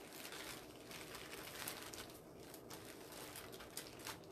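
Faint, irregular crinkling and rustling of bags of craft supplies being handled and searched through.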